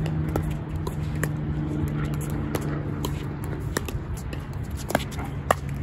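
Pickleball paddles striking the plastic ball: sharp pops at irregular intervals, the loudest about five and a half seconds in. Under them run a steady low hum and wind rumble on the microphone.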